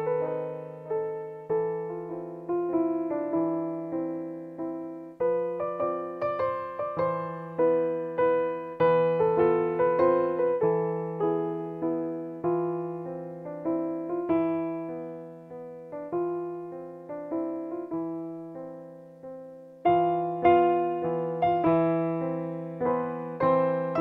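Digital piano played in a slow, improvised way: notes and chords struck and left to ring and fade over a low note that is sounded again and again. The playing thins and grows quieter past the middle, then comes back louder with fuller chords about 20 seconds in.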